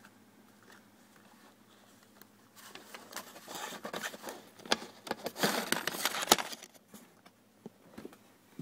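Rustling and scraping of papers and objects in a drawer, a dense crackly stretch with many sharp clicks that starts about two and a half seconds in and stops about four seconds later, followed by a few scattered clicks.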